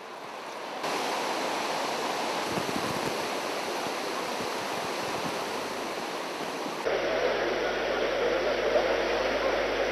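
Floodwater rushing in a swollen river, a steady noise of running water that gets louder about a second in and changes in character about seven seconds in.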